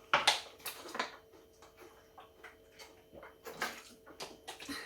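Crunchy Doritos tortilla chips being chewed and handled: irregular sharp crunches and crackles, loudest in the first second.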